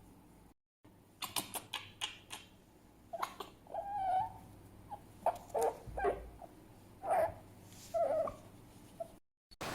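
Fennec fox giving a series of short, pitched calls, with a few sharp clicks about a second in.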